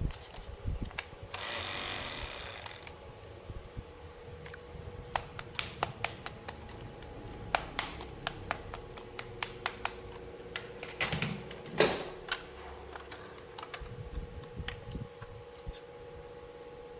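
Plastic toy pieces and packaging being handled: irregular light clicks and taps, with a rustle of packaging lasting about a second and a half soon after the start. A faint steady hum runs underneath.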